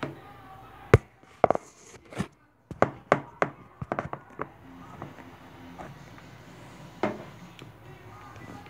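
Sharp knocks, taps and clicks of small objects being handled and set down on a hard counter. There is one knock at the start, then a quick run of about a dozen from one to four and a half seconds in, and one more near seven seconds.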